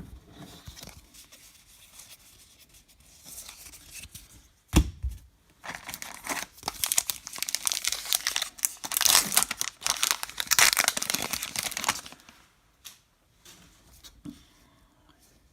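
A baseball card pack's wrapper being torn open and crinkled, a dense crackling run from about six to twelve seconds in, loudest around ten seconds. A single thump comes just before it, near five seconds in.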